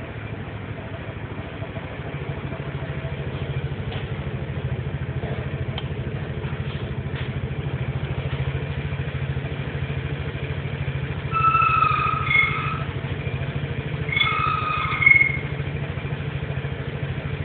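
Vespa GTS 250's single-cylinder four-stroke engine idling steadily while warming up after a start, its pulse picking up a little about two seconds in. Twice, around two-thirds of the way through and again near the end, a brief high-pitched tone rises over it, louder than the engine.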